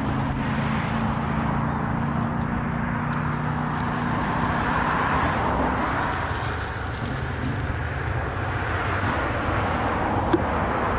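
Steady road traffic noise, with a vehicle engine running at a low steady hum that fades out about halfway through.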